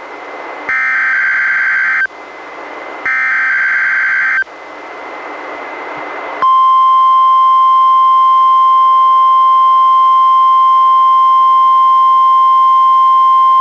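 NOAA Weather Radio emergency-alert test signal received on a weather radio. It opens with the second and third SAME digital header bursts, each about a second and a half of harsh two-tone data, with radio hiss between them. About six seconds in, the steady, loud 1050 Hz warning-alarm tone starts and holds.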